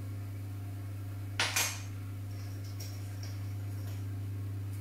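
A metal teaspoon clinks twice in quick succession against crockery about a second and a half in, over a steady low hum.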